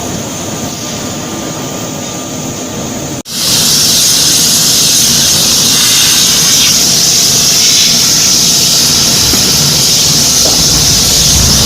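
Steady industrial machinery noise of a forging workshop. About three seconds in it breaks off for an instant and comes back louder, with a steady high hiss on top.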